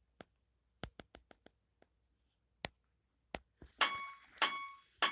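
Scattered sharp clicks, then from about four seconds in a run of loud struck hits, each ringing on with a clear metallic tone, roughly two a second.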